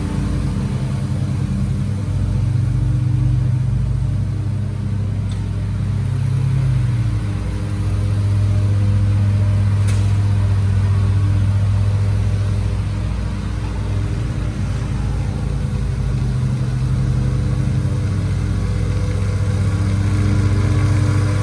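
Ferris stand-on zero-turn mower engines running under load while cutting grass: a steady drone whose pitch steps up and down a few times.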